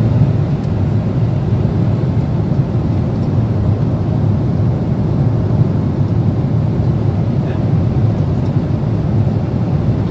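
Steady cabin noise of a Boeing 777-300 airliner in flight, an even low rush of airflow and engines heard from a passenger seat.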